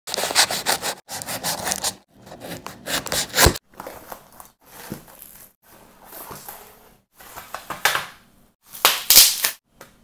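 Knife blade slicing through the tape and seam of a cardboard mailing box in a series of short scraping strokes, then cardboard flaps scraping and rustling as the box is opened, with a couple of dull knocks.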